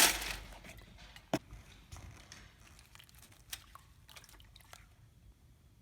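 Whisked egg and potato mixture poured into a tinfoil-lined Dutch oven: a wet splash right at the start that fades over about half a second, then a sharp click about a second and a half in and scattered faint clicks and drips.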